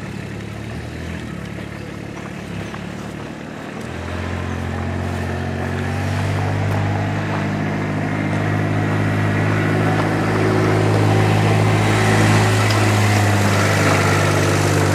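Kubota utility vehicle's engine running at a steady pitch, growing louder from about four seconds in as it comes close.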